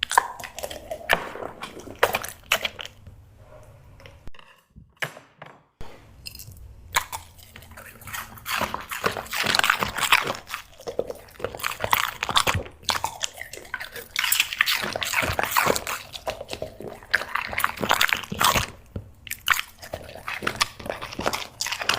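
Dog eating, chewing and crunching its food in quick irregular bites, with a brief pause about four seconds in before the chewing picks up again.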